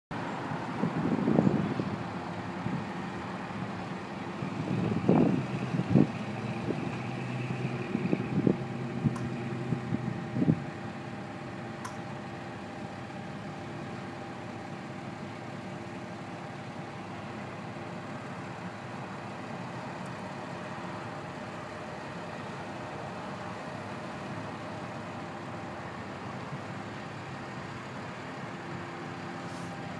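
A motor vehicle engine idling steadily, a constant hum with a few held tones. In the first ten seconds several loud low rumbles break over it.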